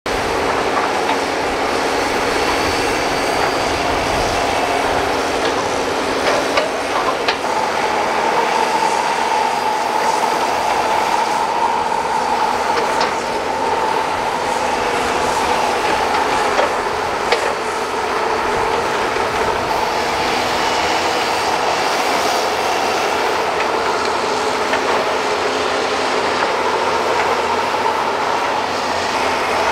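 Hydraulic crawler excavators working in mud: diesel engines running with a steady hydraulic whine, broken by a few sharp metal clanks.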